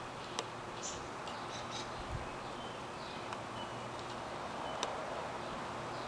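Outdoor ambience: a steady background hiss with short, high bird chirps now and then, a faint low hum and a few sharp clicks.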